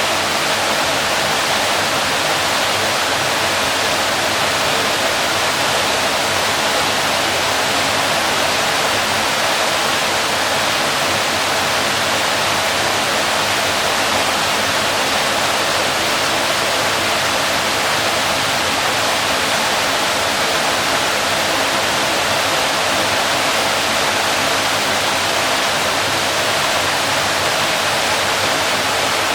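Waterfall: a steady rush of falling water, an even hiss-like roar that never changes in level.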